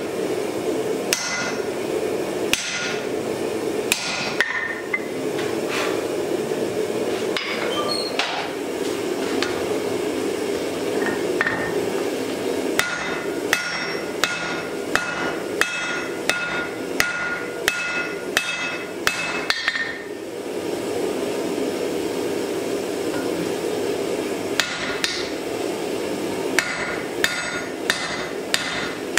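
Hand hammer striking hot wrought iron on an anvil, each blow ringing: a few spaced blows, then runs of steady blows about two a second with a pause of several seconds between them. A steady low rush runs underneath.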